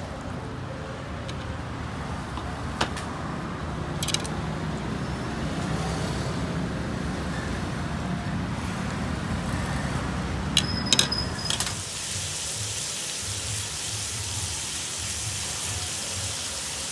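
Street traffic rumbling, with a few sharp clinks of chopsticks against a ceramic bowl, a quick cluster of them near the eleven-second mark with a brief ring. About twelve seconds in the sound changes to the steady sizzle of pork belly slices frying in oil on a grill pan.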